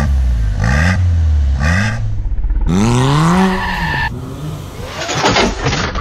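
Mini Cooper S R56's turbocharged 1.6-litre four-cylinder revved through its aftermarket valved exhaust: three quick blips in the first two seconds. It then accelerates away, its note rising and falling.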